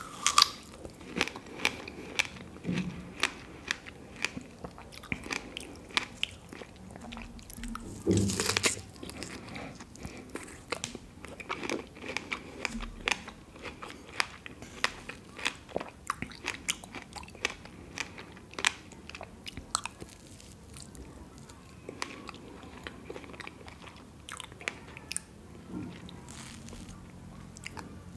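Close-miked eating sounds: biting into and chewing a large strawberry and chocolate cream cake, with frequent sharp wet mouth clicks and smacks. A louder bite comes about eight seconds in.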